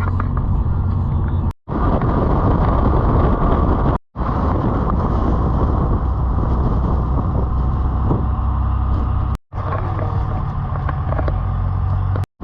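Steady road and engine noise of a vehicle driving, with a low hum underneath. It drops out abruptly three times where short clips are cut together.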